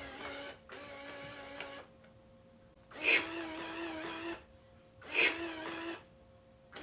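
VTech Kosy puppy toy's small internal motor whirring in repeated runs of about a second with short pauses between, working the eyes and tongue. Each run starts with a brief louder burst, and the whirr is a little higher in pitch in the later runs as the supply is raised from 13 V to 15 V.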